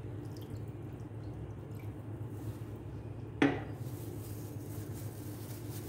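Water poured from a drinking glass into a glass bowl of raw chicken, faint over a steady low hum, then one sharp clink about three and a half seconds in as the glass is set down on a granite countertop.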